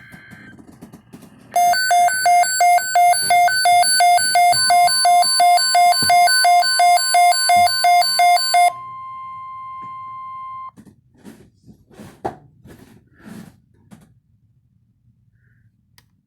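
A weather radio's alert alarm beeping loudly, about three beeps a second, together with the steady 1050 Hz NOAA Weather Radio warning tone, which comes in partway through. The beeping stops about nine seconds in. The steady tone goes on alone for about two seconds and then cuts off, followed by a few faint clicks.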